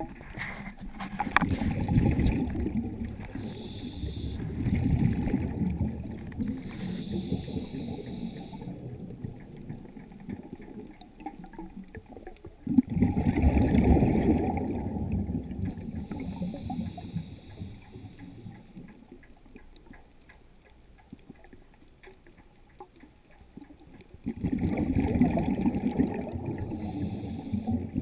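Scuba diver's exhaled bubbles rushing and gurgling past an underwater camera, heard underwater. They come in three long rushes with quieter gaps between, as the diver breathes through the regulator.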